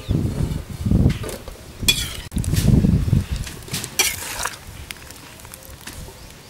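Steel ladle scooping boiled ash gourd cubes out of a steel kadhai into a steel plate: metal scraping and clinking against the pans, with a few sharp clinks in the first four seconds, quieter after.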